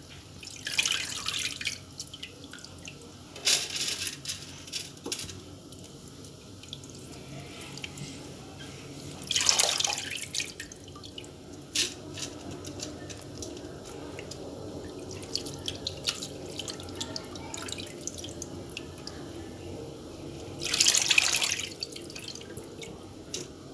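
Wet, water-soaked vermicelli being scooped out of a dish of water by hand and dropped into a couscoussier steamer basket, water dripping and splashing back into the dish, with louder splashes about 1, 3.5, 10 and 21 seconds in.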